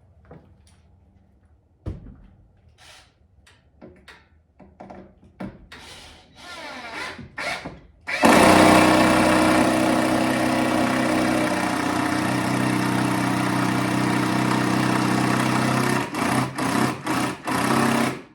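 A few knocks and clicks of handling. About eight seconds in, a power drill starts and runs steadily for about eight seconds, then gives several short bursts on the trigger near the end.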